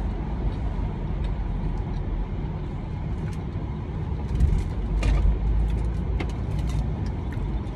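Car cabin road noise while driving: a steady low rumble, with a few light clicks and rustles through the middle.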